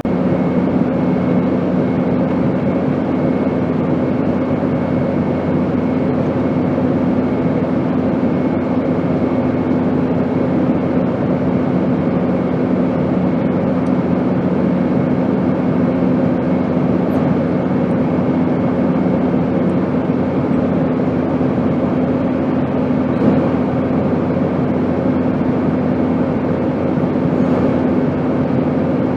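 Steady airplane noise: an even rush with a constant low hum under it, unchanging throughout.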